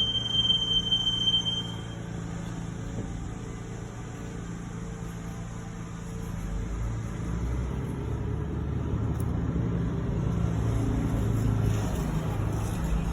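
2021 Toyota 4Runner TRD's brakes giving a steady high-pitched squeal that stops about two seconds in. This is a squeal that shows up on the first few stops of the day. Then the vehicle's engine and road rumble, getting a little louder in the second half.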